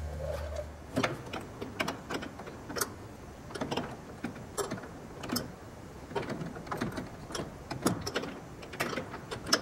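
A wrench tightening the jam nut on an aileron pushrod rod end: irregular metallic clicks and taps, a couple a second.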